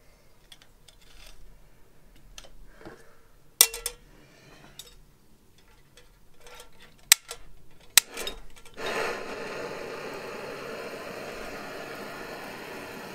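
Metal clatter of a pot support and grill pan being fitted onto a Fire Maple Fixed Star X2 canister gas stove, then two sharp igniter clicks. About nine seconds in the burner lights and runs with a steady rushing hiss.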